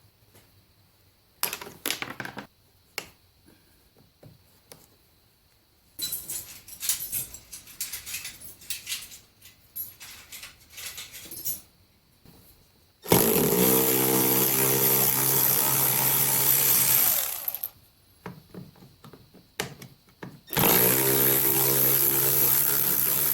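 Cordless power driver spinning out the taillight's mounting bolts: two steady motor runs of about four seconds each, the first near the middle and the second near the end. Before them come clicks and rattling as the tool and fasteners are handled.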